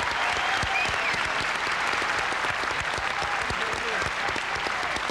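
A large audience applauding steadily in a standing ovation, with a few voices calling out in the crowd.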